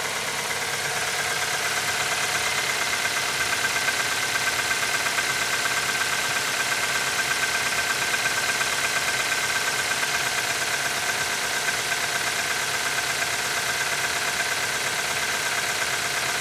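Nissan QG18DE 1.8-litre four-cylinder petrol engine idling steadily at −15 °C, with a knock that appears when the engine is cold.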